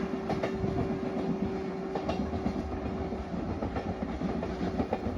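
Freight train rolling past, its wheels clattering irregularly over the rail joints over a steady rumble, with a steady tone that fades out about four seconds in.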